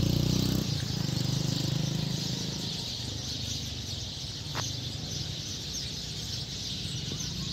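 A flock of sparrows chirping together in a tree at dusk, a dense continuous twittering. Under it a motor vehicle's engine hum fades down about half a second in and lingers faintly.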